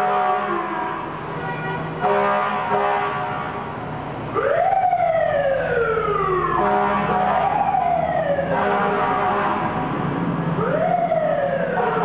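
Seagrave fire engine sounding its air horn in steady blasts, then its siren winding up quickly and falling slowly, repeated about four times.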